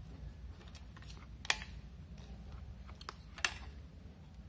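Light clicks and taps of a screwdriver tip and wire against the metal screw terminals of a switching power supply; two of the clicks are sharper, about two seconds apart.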